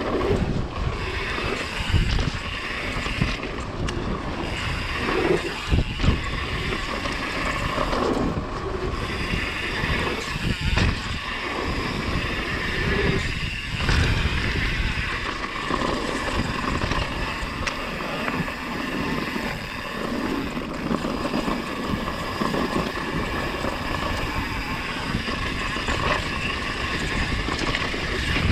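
Wind rushing over the microphone of a mountain bike descending a dirt trail, with the bike's rattle and repeated knocks and thumps from bumps along the way.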